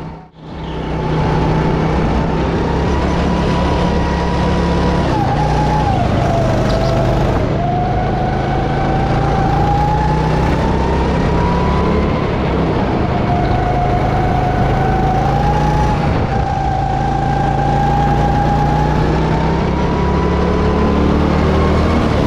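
Go-kart engine running hard on a lap. Its pitch climbs steadily and then drops sharply several times as the speed changes. A brief dropout comes just after the start.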